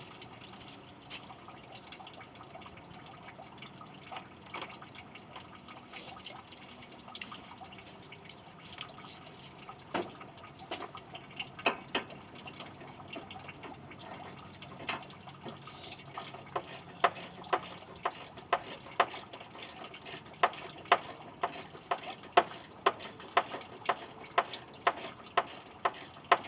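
Hand tools clicking and tapping on the radiator area, then from about two-thirds of the way in a socket ratchet being worked on a fastener, with sharp regular clicks about twice a second that grow louder toward the end.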